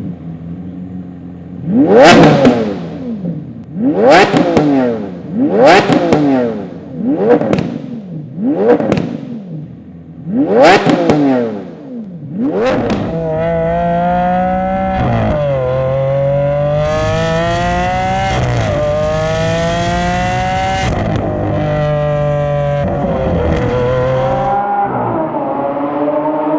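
Straight-piped 2016 Lamborghini Aventador SV's V12 on iPE titanium test pipes, blipped about six times in quick, sharp revs over the first dozen seconds. It then runs steadily under load, its pitch climbing and dropping back at a few gear changes.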